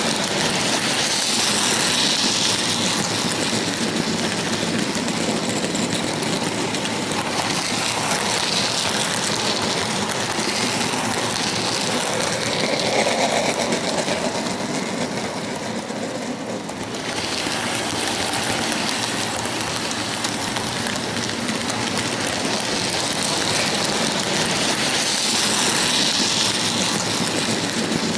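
HO-scale model freight train rolling past, its wagons' wheels running over the sectional track with a continuous rumbling rush. It is loudest at the start and again near the end, easing briefly about two-thirds of the way through.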